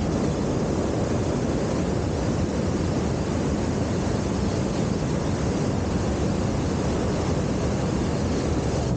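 Hot air balloon's twin-coil propane burner firing in one long continuous blast, a loud steady rush that starts abruptly, heating the air in the envelope.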